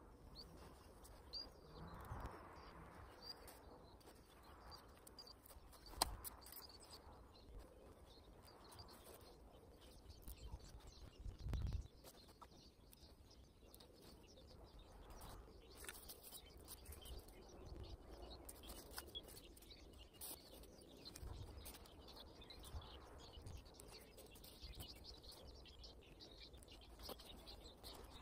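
Quiet woodland with faint bird chirps and soft rustling of mesh fabric and dry leaves being handled. There is a sharp click about six seconds in and a dull thump about halfway through.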